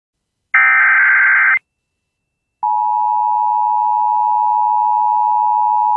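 Emergency Alert System tones announcing a tornado warning. A burst of digital SAME header data lasts about a second, then after a second of silence the steady two-tone EAS attention signal starts near the middle and holds.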